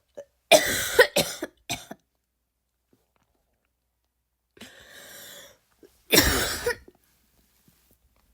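A woman forcing deliberate barking coughs: three harsh coughs in quick succession about half a second in, then after a pause and a breath in, one long loud cough about six seconds in.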